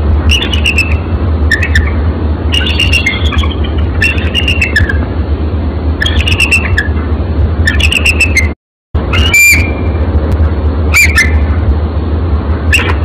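Bald eagle calling: repeated bursts of high, piping, chattering notes that fall in pitch, over a steady low rumble and hiss. The sound cuts out for a moment about eight and a half seconds in, then the calls resume.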